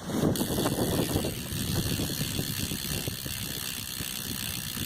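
Sealed Mongoose rear hub of a BMX bike freewheeling as the back wheel spins, its four pawls ticking in a rapid, even stream. The clicking is loudest in the first second or so and eases a little after.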